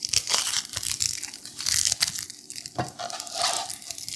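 A kitchen knife cutting through a raw onion on a cutting board: crisp crunching and crackling of the onion's layers and papery skin. A knock of the blade on the board comes a little under three seconds in.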